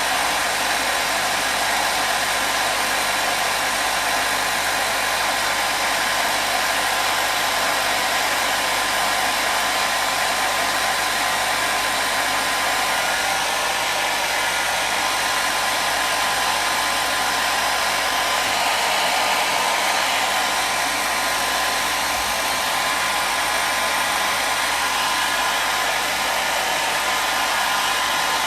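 Hair dryer running steadily on one setting: an even, unbroken rush of blowing air with a faint motor hum.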